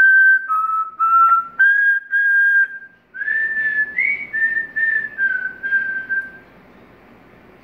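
African grey parrot whistling a tune in clear, pure notes: a phrase of about five notes, a short break about three seconds in, then a second phrase of about seven notes that ends about six and a half seconds in.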